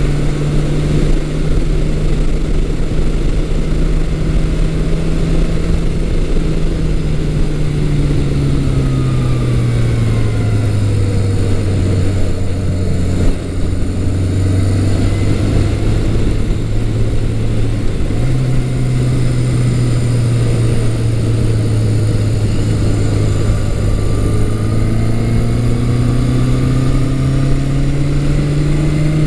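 A 1980 Yamaha XS1100 Special's 1100cc inline-four running under way on the road, heard from the rider's position with wind noise. The engine note drops as the bike slows about ten seconds in, steps up a little past the middle, and climbs again near the end as it speeds back up.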